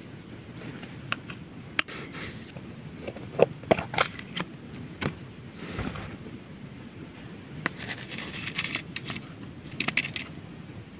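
A metal spoon clicking and scraping against a steel plate and a plastic spice box as curd and salt are spooned onto raw chicken: a string of sharp clicks, with short scraping rustles near the end.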